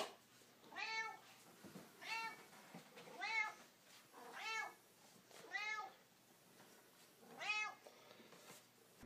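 Domestic tabby cat meowing six times, about once a second with a longer pause before the last. Each meow rises and then falls in pitch.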